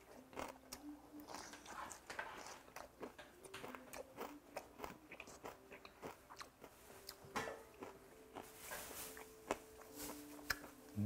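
Close chewing of raw goby sashimi wrapped in ripe young-radish (yeolmu) kimchi, with many small, irregular crunches as the soft, whole-chopped fish bones and the kimchi are bitten through.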